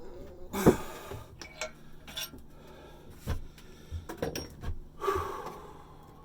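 Irregular metallic knocks and clanks from hand tools worked against a rusted steel exhaust pipe and muffler joint. The sharpest knock comes about half a second in, lighter knocks follow, and a longer ringing clank comes near the end.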